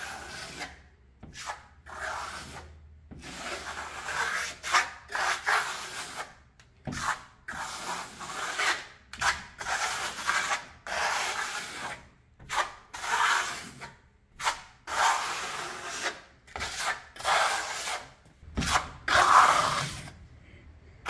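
A trowel scraping acrylic decorative plaster across a rough quartz-primed wall in a thin first coat: repeated scraping strokes, roughly one a second, with short pauses between them.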